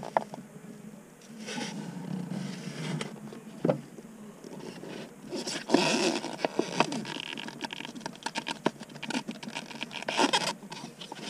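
Handling noise of a thin plastic cup held in a nitrile-gloved hand, scraping, crinkling and tapping against the compartment while it is tipped to pour two-part expanding foam. The clicks and scratching are irregular and busiest about six seconds in and again near the end.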